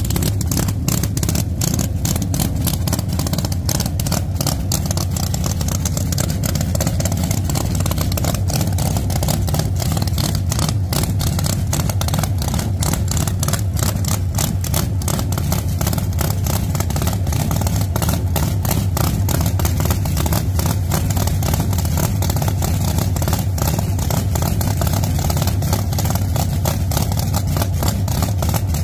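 Pro Mod drag race car's engine idling loudly and steadily, with a rapid, even train of exhaust pulses.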